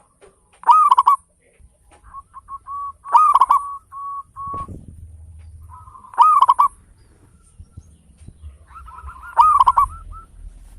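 Zebra dove (perkutut) singing. Four loud phrases come about every three seconds, each a quick burst of rolling notes at the same pitch, with softer trilling notes between them.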